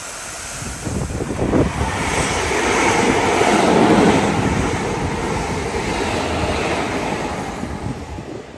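Class 325 Royal Mail electric multiple unit passing through a station at speed: a rushing rumble of wheels on rail that swells to a peak about four seconds in, then fades as the train draws away.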